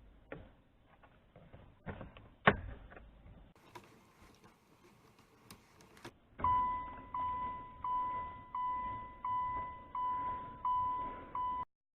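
A Mitsubishi Lancer Evolution IX's in-car warning chime sounds about eight times, about 0.7 s apart, each note fading before the next. It is preceded by a few sharp clicks from the key and ignition switch, the loudest a little over two seconds in.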